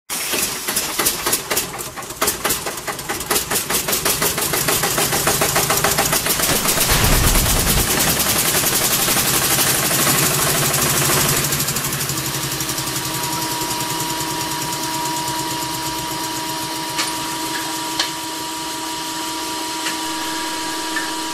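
Engine sound effect: an old motor sputters into life with rapid, uneven firing, builds up over the first few seconds and settles into steady running.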